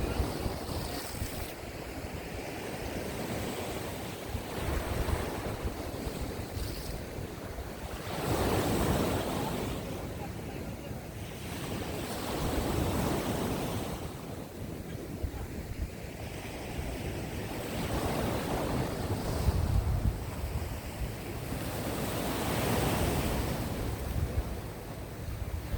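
Sea waves washing onto the shore, the surf swelling and fading every four seconds or so, with wind gusting on the microphone.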